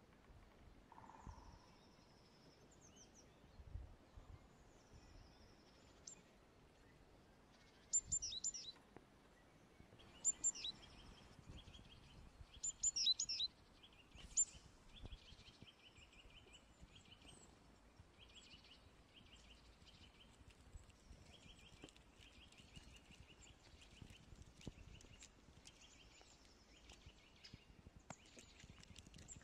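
Small songbirds calling in the trees. Clusters of sharp, high chirps come about a quarter of the way in and again around the middle, and these are the loudest sounds. Phrases of a quick, rapidly repeated trill recur through the rest.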